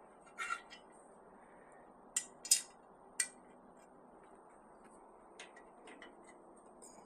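Clicks and clinks of screws and a screwdriver against an electric smoker's leg as it is screwed on: a few sharp clicks in the first three seconds, then fainter ticks.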